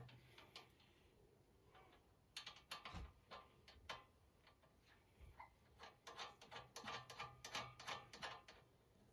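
Faint metallic clicking and clinking of hand tools and bolts, with quick runs of ratchet-like clicks about a third of the way in and again in the second half.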